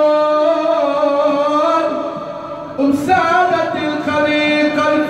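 A man chanting an Arabic religious praise song unaccompanied into a handheld microphone, holding long wavering notes. The line fades briefly, and a new phrase starts about three seconds in.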